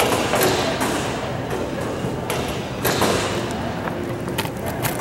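Ambience of a large airport hall: indistinct voices of people around, with scattered sharp knocks and thumps.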